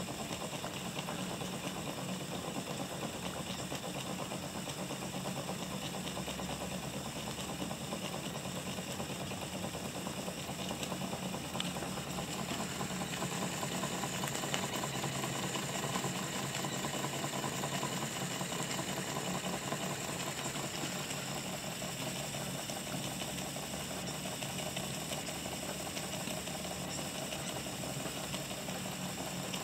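1920s Weeden Type 14 toy steam engine running steadily, with a fast, even mechanical rattle from its small cylinder and flywheel.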